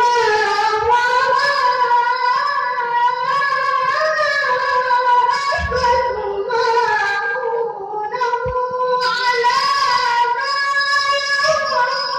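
A boy's high voice reciting the Quran in the melodic qari style, long held and ornamented notes with short breaks between phrases.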